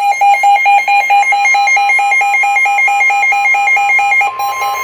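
Weather radio receiver sounding its alert alarm: a rapid electronic beeping, about seven beeps a second, with a second tone stepping up and down above it. Near the end a steady higher tone comes in under the beeping.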